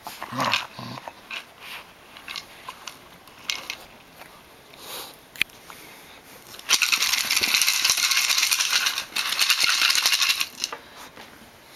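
Treats rattling inside a Busy Buddy Tug-a-Jug plastic treat jug as it is shaken by hand: a loud, dense rattle for about four seconds from just past the middle, broken briefly once. Before it come scattered clicks and knocks as the jug is nudged about.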